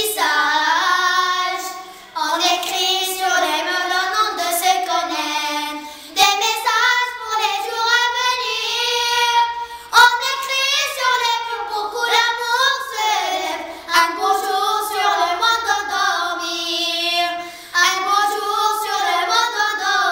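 Two young girls singing a French song together, in phrases of about four seconds with short breaks between them.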